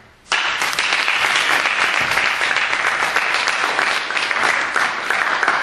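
Audience of students applauding: dense, steady clapping that starts abruptly a moment in.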